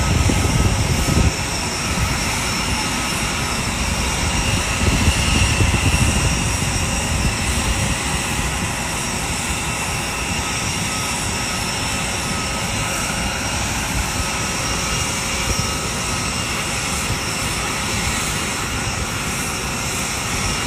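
Steady jet noise from parked jet aircraft on the apron: a constant rumble with several high steady whines, swelling a little in the first second and again about four to six seconds in.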